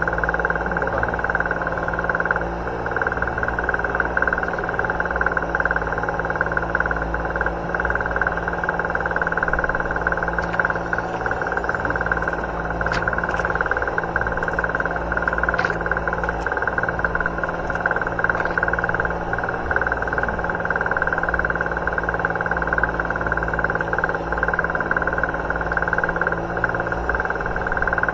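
Fishing boat's engine running steadily, a continuous drone with a constant high hum over it.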